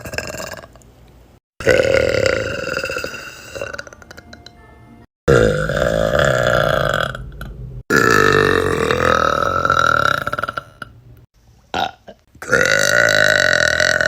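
A run of long, loud belches by girls, one after another, each lasting two to three seconds and cut off abruptly before the next begins, with four of them starting during this stretch.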